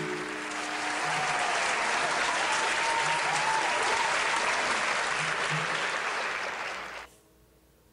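Applause at the end of the song, rising over the last ringing notes of the acoustic guitar and stopping suddenly about seven seconds in.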